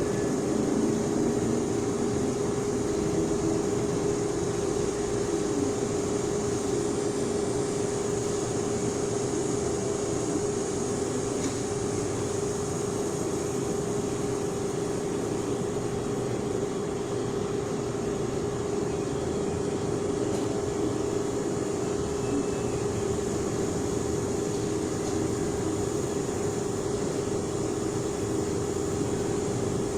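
CNC lathe running steadily: an even mechanical hum with a held tone in it.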